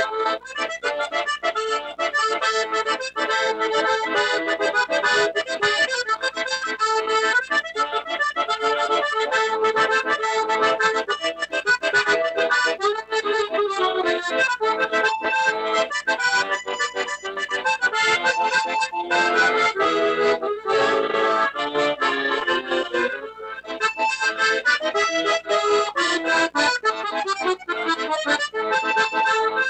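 Accordion playing a continuous tune with a steady rhythm, with a brief drop in level about two-thirds of the way through.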